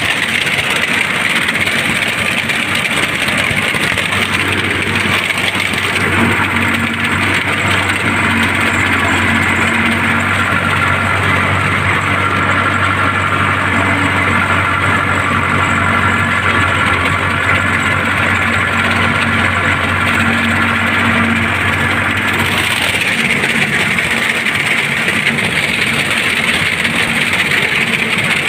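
Tractor diesel engine running steadily as the tractor drives. The sound turns hissier about three quarters of the way through.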